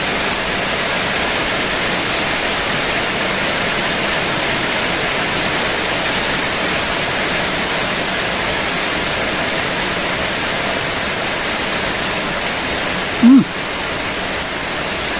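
Heavy rain falling steadily, a dense, even hiss. About two seconds before the end comes one brief, loud voiced sound.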